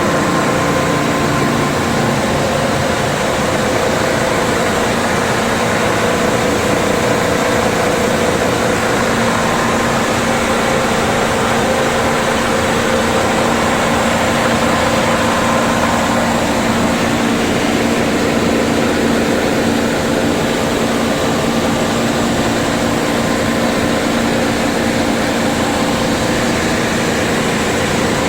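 Bread crumb extrusion production line running: a steady, loud machinery noise with several constant motor hums, unchanging throughout.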